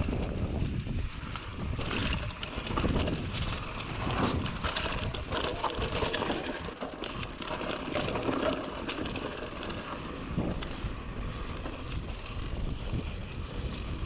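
Polygon Siskiu D5 mountain bike riding down a rough dirt trail: wind rushing over the action camera's microphone, with constant clatter and knocks from the bike over the ground.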